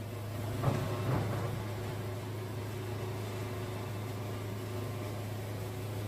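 Wood-Mizer LT70 band sawmill running steadily, its bandsaw blade cutting lengthwise through a white oak log. The cut is fed slowly because the blade is dull.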